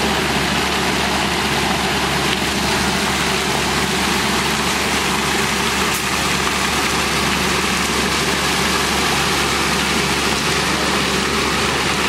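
Concrete mixer truck's diesel engine running steadily, driving the turning drum as it discharges wet concrete down the chute.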